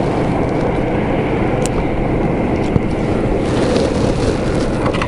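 Wind buffeting the microphone on open ice: a steady low rumbling noise, with a few faint clicks.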